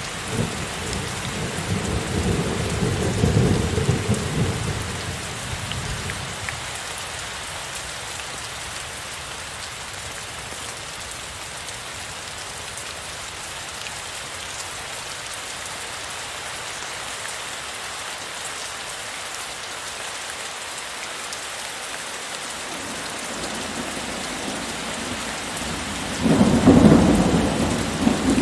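Heavy rain falling steadily, with thunder: a low rumble dies away over the first few seconds, and a sudden loud thunderclap rumbles near the end.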